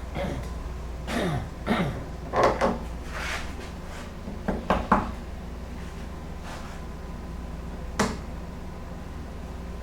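Clamps being set and tightened on a wooden door: irregular knocks and clatter of the clamps against the wood, with a sharp click about eight seconds in.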